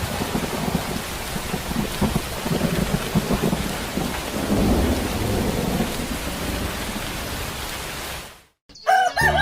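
Steady rain with low rolling thunder rumbles, fading out suddenly about eight seconds in; music starts just before the end.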